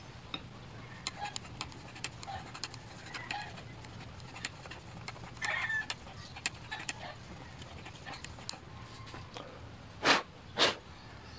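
A reed valve block being rubbed flat on fine 2000-grit sandpaper over a glass plate, to true its worn rubber seat: soft rubbing with scattered light ticks and scrapes. Near the end come two short, loud bursts of noise.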